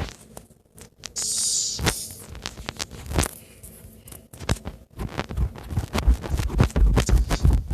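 A short hiss lasting under a second, about a second in, then a run of scrapes, knocks and low thumps that get louder and closer together toward the end.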